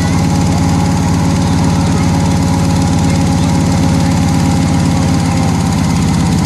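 Off-road 4x4 vehicle's engine running steadily and loud, with a fast, even pulsing from its firing strokes.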